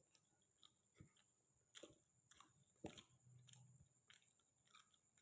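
Close-up chewing of a mouthful of white rice and fish: soft, wet mouth clicks and smacks at an irregular pace, two of them louder about two and three seconds in.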